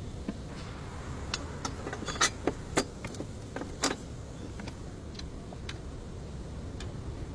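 A car engine running with a steady low rumble. A handful of sharp, irregular clicks and knocks sound over it, the loudest about two to four seconds in.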